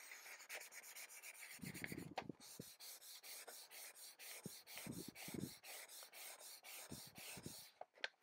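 Very fine wet/dry sandpaper, about 400 grit, rubbed by hand over a glossy magazine page in quick back-and-forth scraping strokes, about four a second, faint; the strokes stop shortly before the end. A few soft low thumps come in between.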